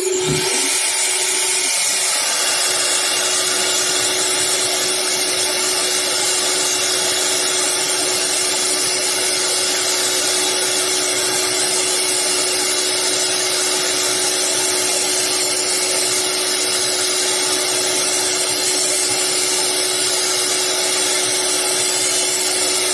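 Woodworking CNC router's spindle running steadily while cutting wood: a constant whine over an even rushing noise, unchanging throughout.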